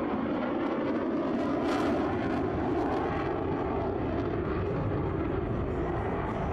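F-16 fighter jet's engine heard in flight: a steady, deep rushing noise that swells slightly about two seconds in.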